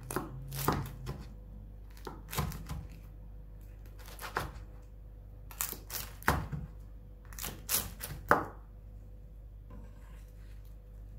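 Large kitchen knife cutting through crisp baked börek of layered yufka pastry, making a crackly crunch of the flaky crust, with knocks of the blade on a wooden cutting board. It comes in about five strokes a second or two apart, the last and loudest about eight seconds in.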